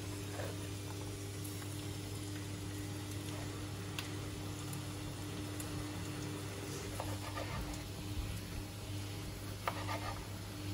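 A steady low hum under a faint hiss, with a few light clicks and taps of a small knife on a plastic cutting board, mostly in the second half.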